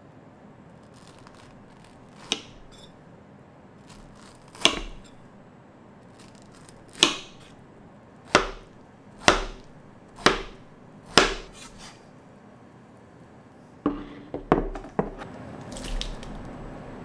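Kitchen knife dicing peeled peaches on a wooden cutting board: single sharp knocks about a second apart. Near the end come a few quick knocks, then the soft patter of diced peach tipped into a glass bowl.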